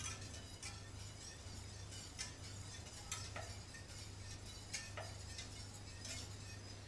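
A utensil faintly clinking and scraping against a metal pot while a milk-and-flour sauce is stirred. Light irregular clicks, a few clearer ones about two, three and five seconds in, over a low steady hum.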